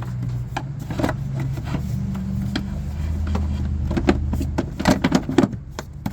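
Plastic clicks and knocks as the air filter and airbox cover are handled and fitted into the airbox, with a cluster of sharper knocks about five seconds in, over a steady low hum.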